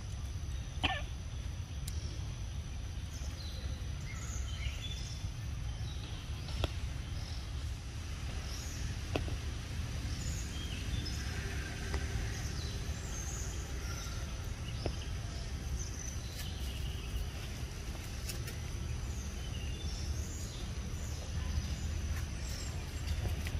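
Outdoor ambience: a steady low rumble with many short bird chirps scattered through it and a few sharp clicks.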